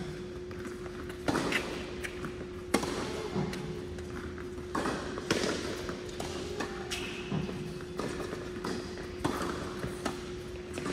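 Tennis rally on an indoor hard court: the ball's sharp pops off the strings and bounces come every second or two and echo in the hall, the loudest about a second and a half and three seconds in. A steady hum runs underneath.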